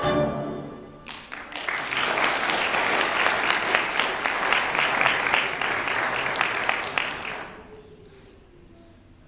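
The last notes of a song die away, then an audience applauds for about six seconds before the clapping fades out.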